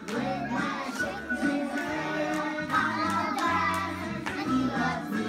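Children's song with a child's singing voice over a bass line, played as the music for a tap dance routine.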